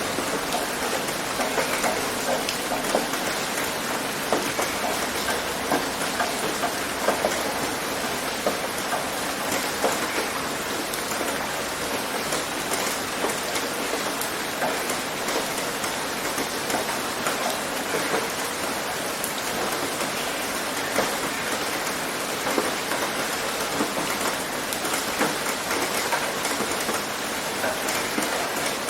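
Steady rain pattering on a tin roof, with many individual drops ticking through an even hiss.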